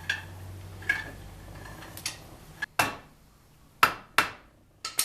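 Irregular sharp metal clanks and knocks from hand tools working on a truck's front brake hardware, about seven in all, the loudest few in the second half ringing briefly.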